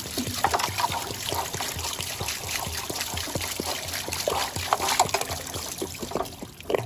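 Water from a solar hot water tank pouring out of the open element port and splashing onto the tank jacket and roof while a new heating element is pushed into the hole. The flow eases off near the end as the element plugs the port.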